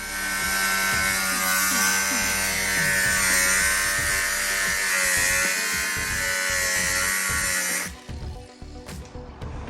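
A high-pitched electric power tool runs steadily as a whine with hiss, sagging slightly in pitch for a moment, then cuts off suddenly near the end.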